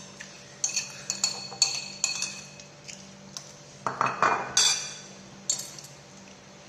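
Cutlery and dishes clinking during a meal: a scatter of sharp clinks that ring briefly, in two bunches, with a short scraping rustle about four seconds in.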